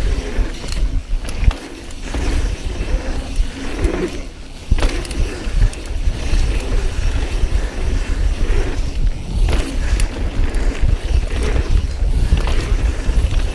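Mountain bike rolling fast down a dirt trail: tyres rumbling on the ground and the bike rattling and clattering over bumps, with heavy wind noise on the microphone.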